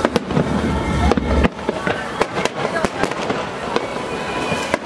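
Aerial firework shells bursting in quick succession, a dense run of sharp bangs with crackling in between. A deep rumble underlies the first second and a half, then cuts off suddenly.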